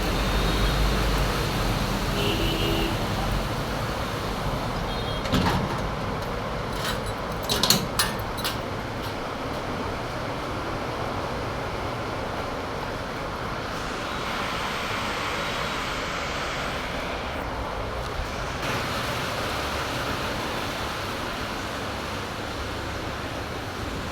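Steady hiss of heavy rain, with a few short sharp knocks about five to eight seconds in.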